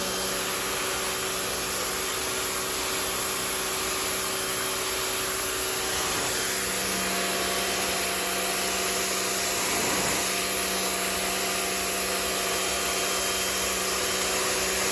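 Rock&Rocker HWY12 pressure washer running steadily, its pump motor humming under the hiss of the water jet spraying onto patio concrete.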